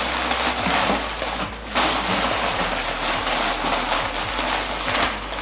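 Background music with a steady hiss under it.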